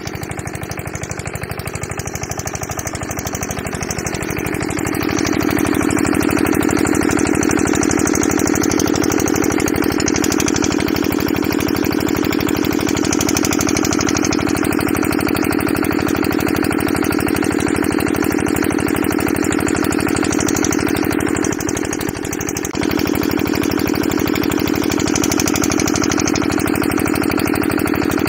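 Kirloskar 5 hp single-cylinder diesel pumpset engine running with its coupled water pump. It grows louder over the first few seconds as it settles to speed, then runs steadily, dropping briefly for about a second a little past the middle.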